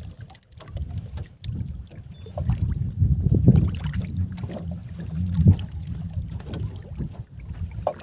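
Wind rumbling on the microphone over choppy sea water moving against the side of a small wooden boat, with two louder gusts about three and a half and five and a half seconds in.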